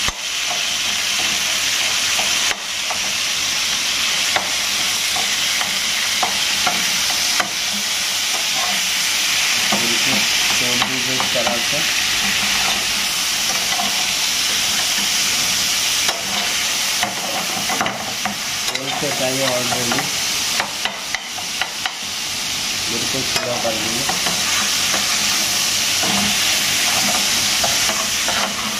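Chicken pieces and tomatoes sizzling steadily in hot oil in a steel pan while a metal spoon stirs and scrapes them, with sharp clicks of the spoon against the pan now and then, several in quick succession about two-thirds of the way through. The tomatoes are frying down to break apart into the gravy.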